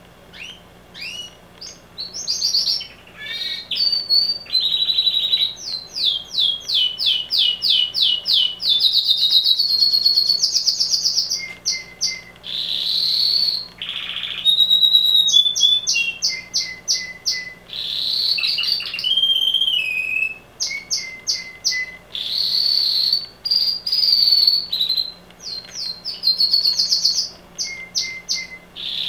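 Pet canary singing loudly: a long run of fast trills and repeated high notes, changing phrase every second or two, starting about a second in.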